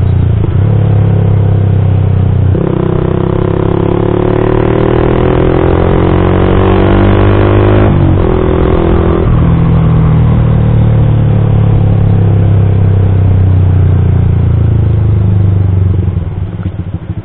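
Yamaha MX King 150's single-cylinder four-stroke engine through a custom aftermarket exhaust, ridden under power. Revs climb, break briefly at a gear change about eight seconds in, climb again, then hold a steady cruise before easing off near the end.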